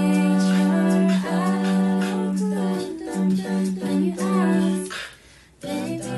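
A cappella vocal group singing in several-part harmony, a held low note under shorter moving upper voices. The voices break off briefly about five seconds in, then come back in.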